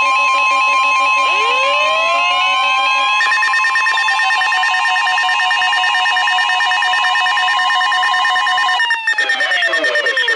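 Electronic emergency-alert tones announcing a severe thunderstorm warning. Several pitches sweep upward over a held steady tone, and a fast pulsing beep joins about three seconds in. Near the end the tones glide downward.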